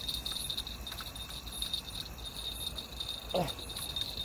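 Crickets chirping in a steady, rapidly pulsing high trill, with two short falling grunts from a man's voice near the end.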